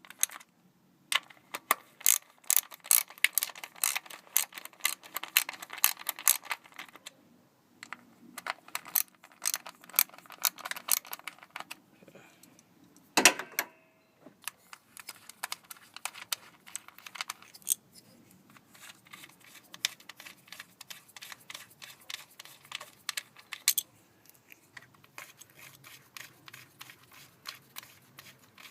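10 mm socket ratchet wrench clicking rapidly in repeated bursts as the bolts are backed out, with one sharp clunk about 13 seconds in.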